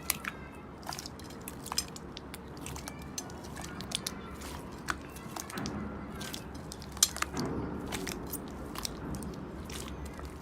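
Slime being pressed and squeezed by hand, giving off irregular sharp crackles and pops. A softer, duller squishing comes in twice: around the middle and again toward the end.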